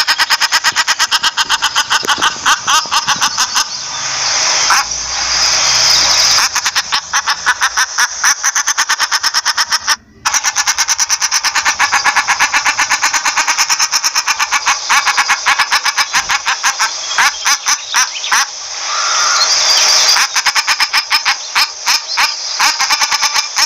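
Common shelduck calling: a long, fast run of short, repeated calls, several a second, broken by a short gap about ten seconds in.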